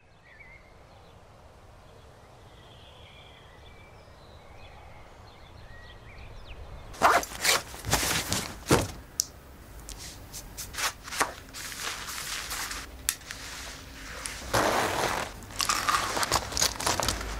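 Faint background hush for about seven seconds, then a run of irregular crunches and knocks at uneven spacing.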